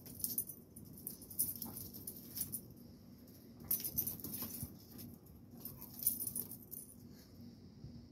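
Rottweiler and blue pit bull tussling on concrete: about five short, irregular bursts of scuffling, with high jingling from their collars and scraping of claws.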